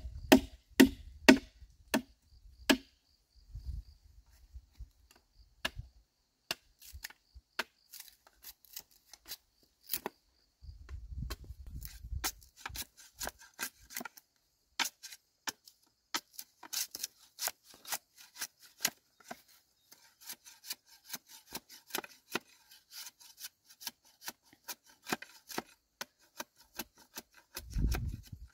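Machete splitting and shaving a bamboo stem: a quick run of sharp cracks, clicks and scrapes as the blade works down the stalk. There are heavier knocks in the first few seconds, again about twelve seconds in, and near the end.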